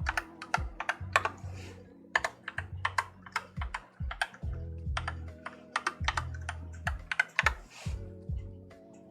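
Typing in quick bursts on an AKKO Tokyo World Tour 3087 mechanical keyboard, the keys clacking in clusters of rapid strokes. Background music plays underneath.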